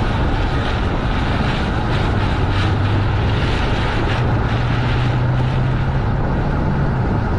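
Car driving fast through a storm, heard from inside the cabin: a steady rush of road, wind and rain noise over the engine, whose low hum climbs a little in pitch through the middle as the car speeds up.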